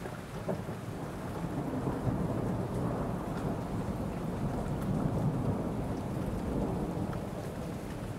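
Steady rain with a low rumble of thunder that swells about two seconds in and rolls on through the middle.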